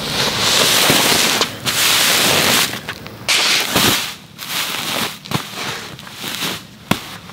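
Large plastic grass-seed bags crinkling and rustling in bursts as they are handled and set down on a stack, with a few dull thumps as they land.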